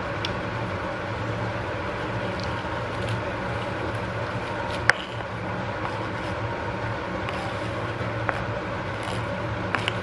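Ramen broth boiling in a nonstick wok over a steady low hum, with a few sharp taps as chopped cabbage is scraped off a plastic cutting board into the pan with a wooden spatula. The sharpest tap comes about five seconds in.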